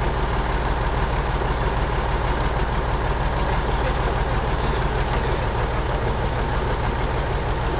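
Truck engine running steadily, driving the hydraulics of a truck-mounted log-loading crane as its grapple handles logs.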